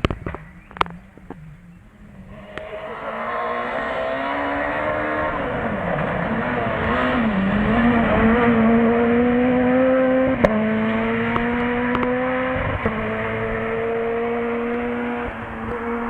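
Rally car engine running hard at high revs as the car comes through. The note builds from about two and a half seconds in, dips briefly around six seconds, then holds high, with a couple of sharp cracks partway through.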